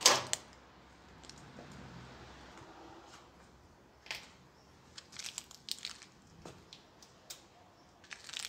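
A plastic clothespin snaps under a bicycle tyre with a sharp crack, and a second snap follows a moment later. Over the second half, the tyre rolls onto a cardboard matchbox and crushes it, making scattered small crackles and clicks.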